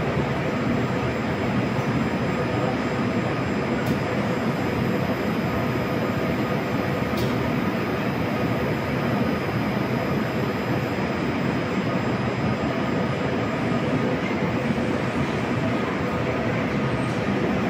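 Moscow Metro train standing at a platform with its doors open: a steady, unchanging hum and hiss with faint steady whining tones.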